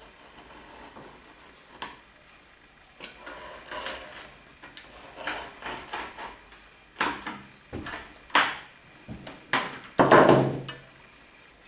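A knife drawn along a steel straightedge, cutting a thin sheet of wood veneer in a series of short scraping strokes, with the loose veneer sheet rustling. A louder scrape and knock comes about ten seconds in.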